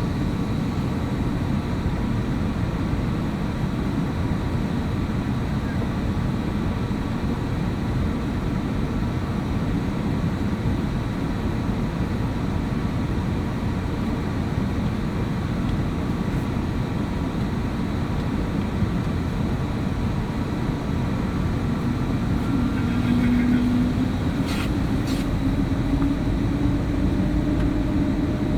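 Cabin noise inside an Airbus A321neo: a steady low rumble from the engines and airflow. About three-quarters of the way through, a low hum comes in and slowly rises in pitch, and a couple of faint clicks follow.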